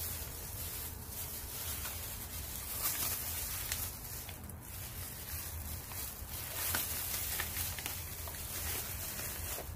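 Newspaper rustling as it is folded and pressed into the burner opening of a portable gas stove, with a few faint clicks, over a steady low hum.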